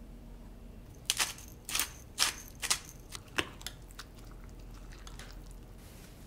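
A metal spoon stirring chopped green onion into a soy-sauce seasoning in a glass Pyrex measuring cup. About a second in come several wet, crunchy scrapes and clinks over about two and a half seconds.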